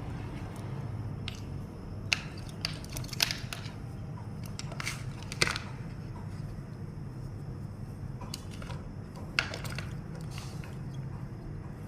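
Scattered sharp clicks and taps, about six of them and loudest around five seconds in, over a steady low hum.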